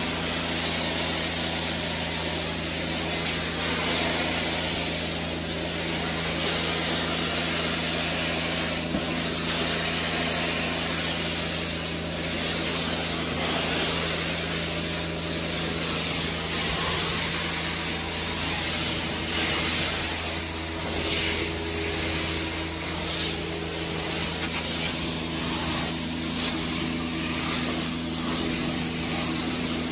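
Hot-water extraction carpet-cleaning wand working over carpet: a steady rushing hiss of spray and suction over a constant machine hum, the hiss swelling and easing in the second half.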